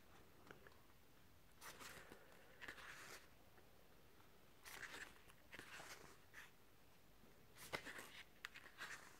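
Pages of a paperback artbook being turned one after another: a string of faint, short paper rustles, about six or seven of them.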